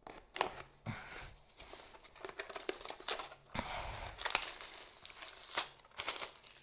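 Trading card packaging being torn open by hand: a plastic wrapper crinkling and tearing in irregular bursts.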